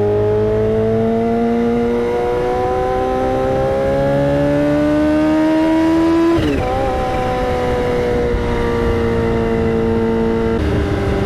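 Supercharged inline-four of a Kawasaki Ninja H2 with an aftermarket Brock's Performance exhaust, heard from the rider's seat: the engine note climbs steadily under throttle for about six seconds, then the throttle is rolled off and the note falls away slowly as the bike slows.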